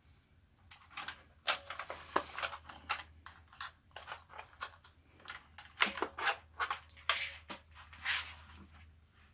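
A string of irregular sharp clicks and taps from a mechanical gaming keyboard being handled, plastic parts knocking.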